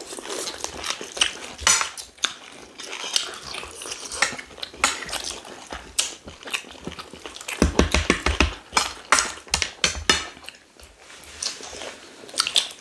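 Spoons clinking and scraping against plates as rice and stew are eaten, with chewing close to the microphone. A quick run of heavier low knocks comes about eight seconds in.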